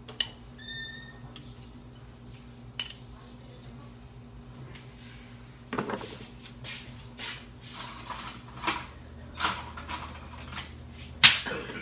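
Chopsticks clinking against a glass bowl: one ringing clink at the start and another a few seconds later, then a run of scattered clinks and knocks in the second half, the sharpest near the end.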